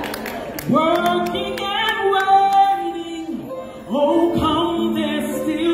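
A woman singing a gospel song into a microphone with instrumental backing: two long phrases of held, sliding notes, the first starting just under a second in and the second about four seconds in.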